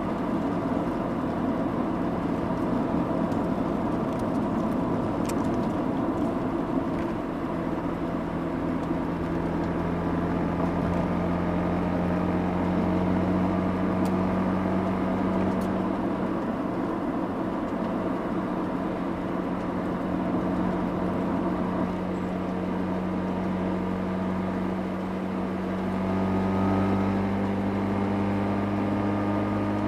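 Mazda RX-8's twin-rotor rotary engine exhaust, heard from the rear bumper, driving along at light throttle with tyre and road noise underneath. The engine note climbs slowly in pitch, then firms up and gets a little louder near the end as more throttle is applied.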